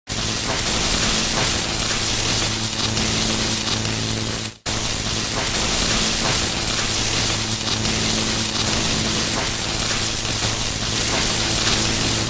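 Electricity sound effect: a steady crackling electric buzz over a low hum, like an arcing current. It cuts out for a moment about four and a half seconds in, then resumes.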